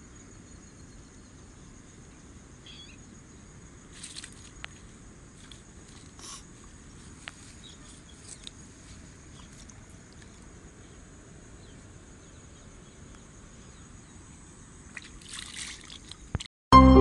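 A steady high-pitched insect drone over quiet pond-side ambience, with a few light rustles and small splashes of hands handling fish and water; about fifteen seconds in, hands splash in the shallow pond water. Loud music cuts in abruptly just before the end.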